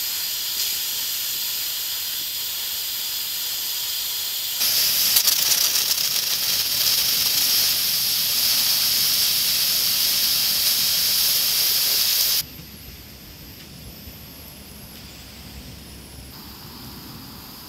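Steam hissing steadily from the pressure-release valve of an Afghan Kazan pressure cooker heating over a campfire: the sign that pressure has built up inside and the valves are working. The hiss grows louder about a third of the way in, then stops abruptly after about twelve seconds, leaving a much quieter background.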